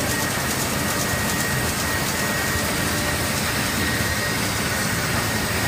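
Mitsubishi Diamond 1000 LS sheet-fed offset printing press running: a steady mechanical whir with a thin, constant high whine over it.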